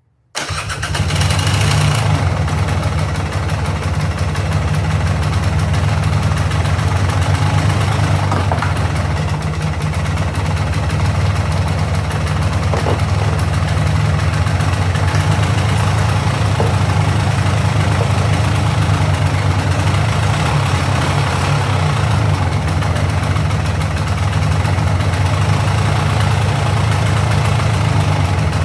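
Polaris Sportsman 400's liquid-cooled two-stroke engine catching about a third of a second in and running steadily. It will not idle on its own, which the owner puts down to an air problem rather than fuel.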